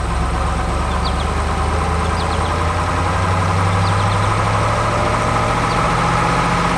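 Heavy machine's diesel engine running steadily at an even speed, with birds chirping faintly over it.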